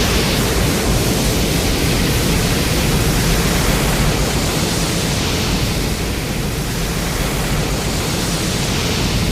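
Loud, steady rushing noise, a monster-film sound effect, holding level for the whole stretch and cutting off abruptly a little after.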